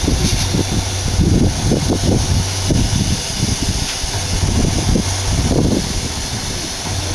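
Tri-axle dump truck's diesel engine running as its hydraulic hoist raises the loaded box: a steady low hum with an uneven low rumble over it.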